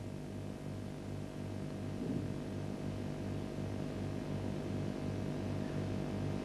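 Steady low machine hum that pulses regularly about three times a second, with a thin steady whine above it.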